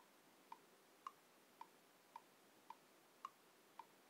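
Near silence with a faint, regular ticking, a little under two ticks a second, every fourth tick louder.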